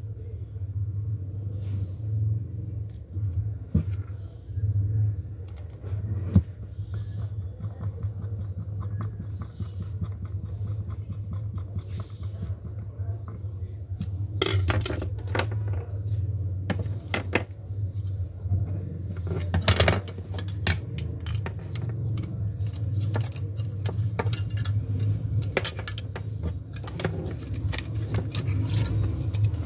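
Small plastic clicks, taps and scrapes as the parts of a dome IP camera are handled, screwed and fitted together with a screwdriver. The clicks come more often from about halfway through, over a steady low hum.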